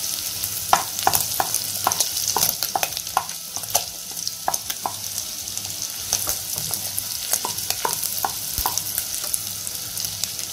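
Sliced onion and garlic sizzling in hot oil, with a wooden spatula scraping and knocking against the pan in many short, irregular clicks as it stirs.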